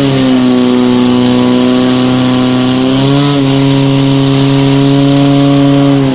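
Portable fire pump engine running steadily under load as it pumps water through the hoses to the nozzles. Its pitch steps up slightly about three seconds in.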